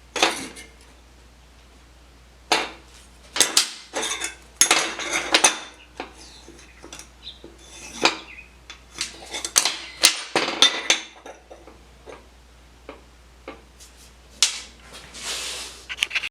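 Pieces of steel clanking and knocking against metal, a dozen or so irregular sharp strikes and rattles with short ringing tails, as parts are handled and set down. A brief hiss of about a second near the end.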